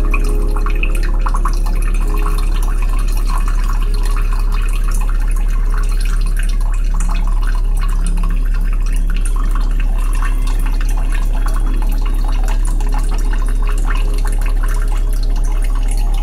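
A steady, very deep tone, offered as the 'frequency of copper' for listening, held under a continuous sound of trickling, dripping water.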